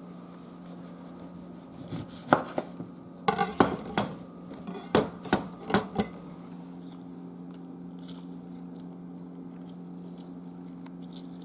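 Kitchen utensils clinking and knocking against dishes: about ten sharp clinks between about two and six seconds in, over a steady low hum.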